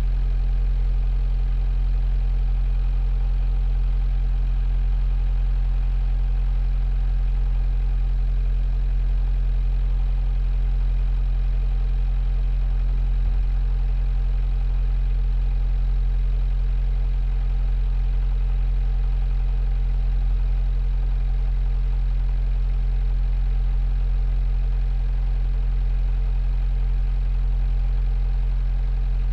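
A 45 ft sailboat's inboard diesel engine running at a steady speed, heard from inside the rear cabin as a steady low hum that does not change.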